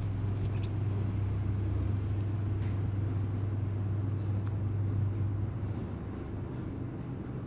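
A steady low hum, easing off a little after about five and a half seconds, with a few faint light clicks.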